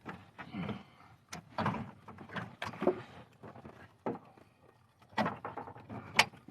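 Metal knocks, clanks and scraping from working on a car's exhaust by hand: several sharp knocks about a second apart with rattling between them.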